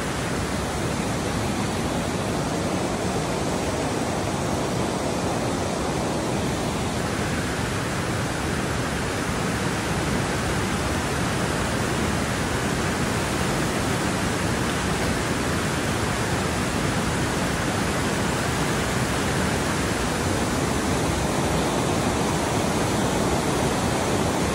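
Fast-flowing river water rushing steadily, with whitewater along the rocky bank.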